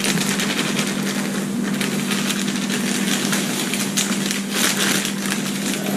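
Clear plastic bag crinkling and rustling as dry cake mix is shaken and squeezed out of it, over a steady low hum.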